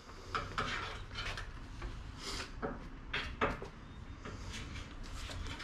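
A handful of light knocks and metallic clinks spread through, from tools and metal car parts being handled during suspension work.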